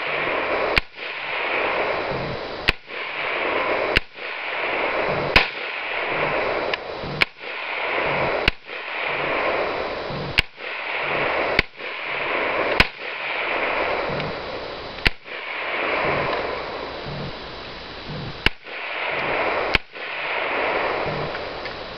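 Bushmaster AR-15 rifle firing single shots until the magazine is empty: about a dozen sharp bangs, one every one to two seconds, with a hiss swelling between shots.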